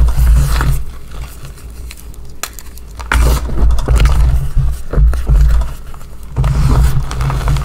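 Hands crushing and crumbling powdery gym chalk reforms, crispy, crunchy crackling of packed chalk breaking down into powder, over heavy low handling noise from hands pressing into the pile. It eases off about a second in and comes back strongly about three seconds in.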